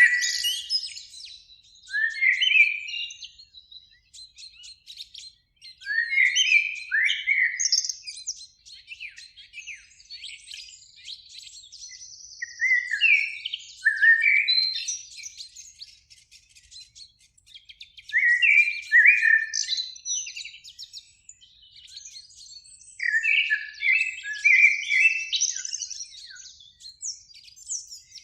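Eurasian blackbird singing: fluty whistled phrases, each ending in a higher twitter, delivered about every four to five seconds, with fainter high twittering between phrases.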